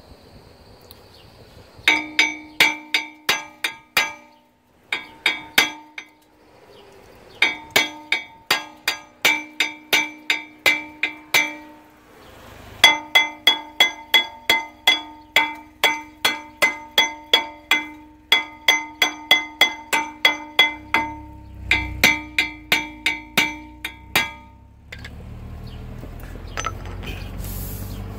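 Steel hammer striking the seized retaining screw of a 2014 Acura MDX's front brake rotor, about four blows a second in runs of several seconds with short pauses. Each blow rings with the same metallic tones. The hammering is meant to break the rust that holds the screw.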